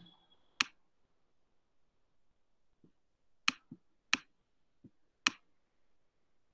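Computer mouse button clicking a few times, sharp single clicks spaced by quiet, some followed by a softer click, as handwriting strokes are pressed and released on an on-screen whiteboard.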